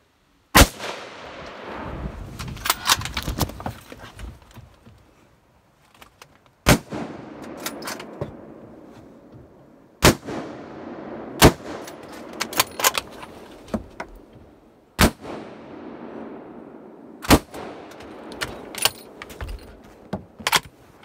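Hunting rifle fired repeatedly: about six loud shots spread over some twenty seconds, each followed by a long echo that dies away, with fainter sharp cracks in between.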